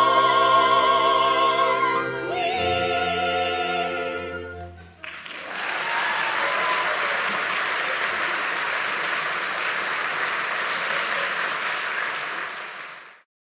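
An operetta ensemble of four voices with orchestra holds its final note with vibrato, then a second sustained closing chord. About five seconds in, audience applause starts and continues steadily until it fades out near the end.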